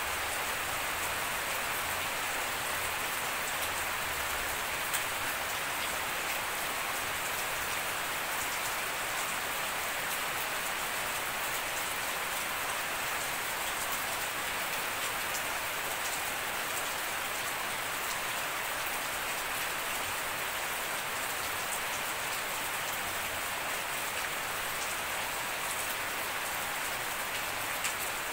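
Steady rain falling on grass, leaves and puddled ground: an even hiss with scattered ticks of drops landing close by.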